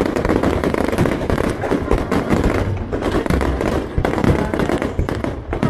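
Fireworks display: a dense, continuous barrage of rapid, overlapping bangs and crackling.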